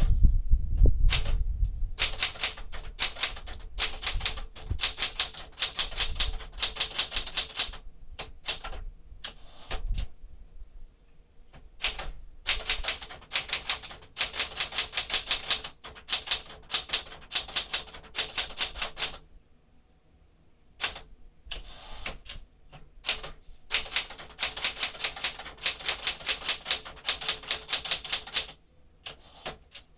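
1973 Smith-Corona Sterling manual typewriter being typed on, its keys struck in quick runs of clacks, with its touch set to the high (firm) setting. The runs break off in short pauses about a third and two thirds of the way through and again near the end.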